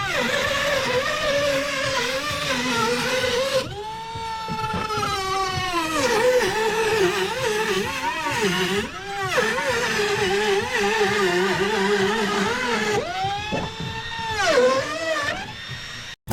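Power saw ripping lumber into strips, in several cuts. The motor's pitch sags and wavers as the blade works through the wood. It spins up again about 4 s in and about 13 s in, and winds down near the end.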